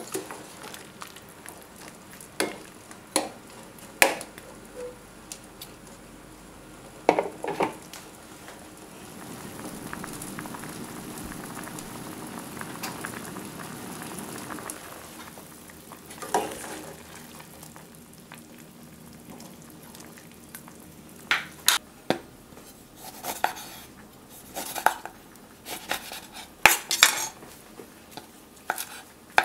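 A metal ladle stirs chicken feet in a stainless steel pot of soy broth, clinking against the pot now and then. Then comes several seconds of the broth simmering with a steady bubbling. Near the end there is a run of sharp taps and knocks.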